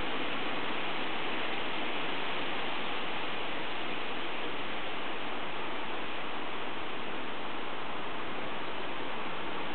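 Steady, even hiss of recording noise with no change in level.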